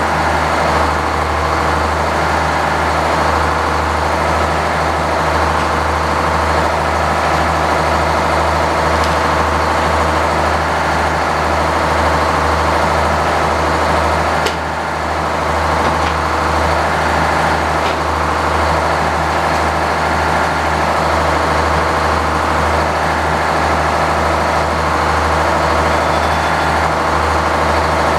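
Sawmill engine running steadily, driving the saw blade, with a short dip in level about halfway through.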